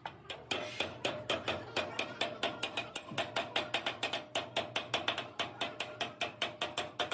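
Light hammer taps on radiator metal, a fast even run of about six strikes a second that keeps going without a break.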